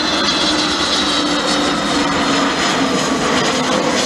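An Airbus A320neo's CFM LEAP-1A turbofan engines on final approach for landing. The jet noise is steady, with a low tone that slowly falls in pitch as the aircraft passes.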